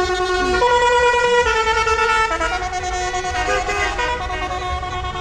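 A musical horn on a passing van sounds a tune of long held notes that step up and down in pitch. Under it is the low rumble of traffic.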